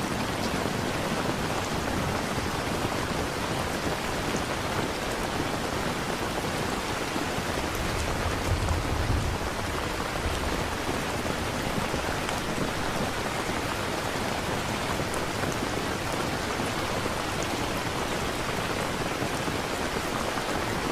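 Steady heavy rain, with a low rumble of thunder swelling briefly a little before the middle.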